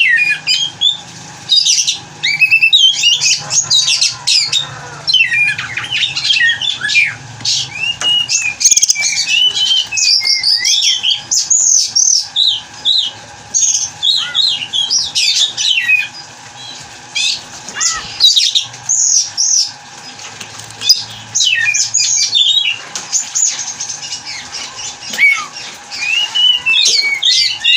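Oriental magpie-robin singing a fast, varied song of whistles and chattering notes, with brief lulls about halfway through.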